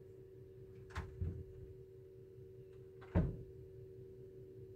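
Knocks on the wooden building frame: one about a second in, a softer one just after it, and a louder one about three seconds in, over a steady hum.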